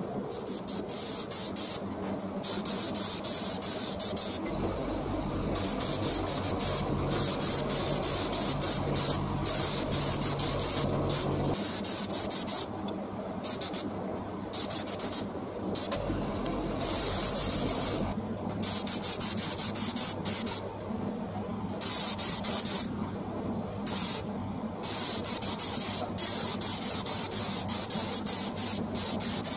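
Spray painting in repeated short passes: a loud hiss of paint spray that starts and stops over and over, with a low hum under part of it.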